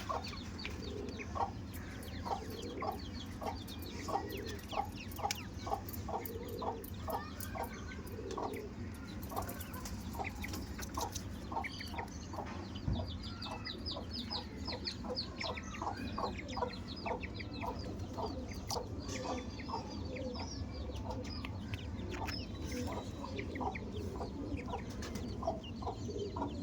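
Quail and teetar (partridge) calling: a steady series of short clucking notes, about two a second, with a run of high chirps about halfway through.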